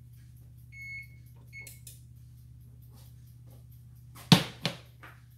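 Electric range's touch control panel beeping twice as a burner is switched on, then two sharp knocks, the first louder, as a bowl is set down on the cooktop.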